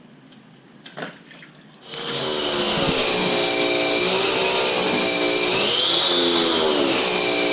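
A car engine running and revving, its pitch wavering up and down, with a steady high whine on top. It starts about two seconds in after a single click and cuts off abruptly at the end.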